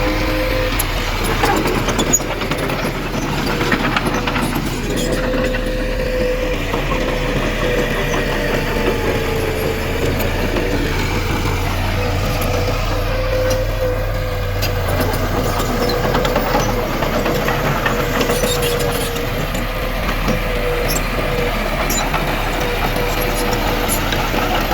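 Diesel engine of heavy earthmoving machinery running steadily, with a steady whine and occasional clanks.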